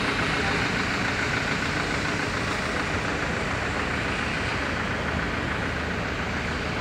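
Steady rumble of a truck's engine idling, with no change in speed.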